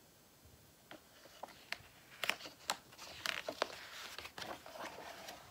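Faint handling of a picture book: a few light clicks and taps, then the rustle and crinkle of a large paper page being turned over.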